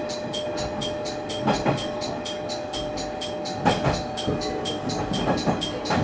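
ATS warning alarm on a JR Shikoku 1500 series diesel railcar sounding in the cab, repeating about four strikes a second; it warns the driver of a restrictive signal ahead. The wheels knock over rail joints in pairs, twice, under the railcar's running noise.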